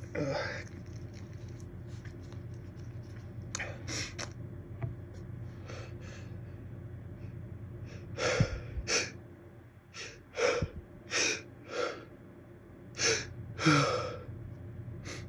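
A person's sneeze build-up: a run of sharp, gasping intakes of breath that come in quick bunches from about eight seconds in, as an itchy sneeze teases without fully letting go.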